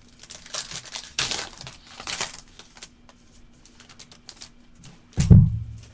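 A foil trading-card pack wrapper being torn open and crinkled in short bursts, followed by a few light clicks and a single sharp thump near the end.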